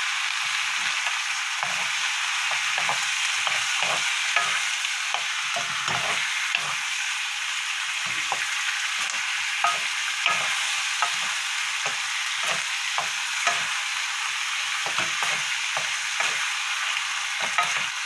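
Small octopus and vegetables in red pepper seasoning sizzling in a frying pan as they are stir-fried with a wooden spatula and spoon: a steady frying hiss with frequent soft knocks and scrapes of wood against the pan.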